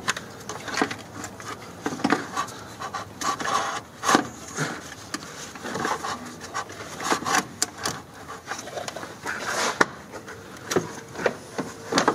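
Plastic radiator fan shroud being worked loose by hand, scraping and knocking irregularly against the hoses, wiring and parts around it in the engine bay.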